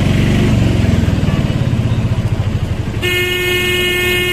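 Auto-rickshaw engine running with a fast low throb, heard from inside the cab. About three seconds in, a vehicle horn starts and holds one steady tone.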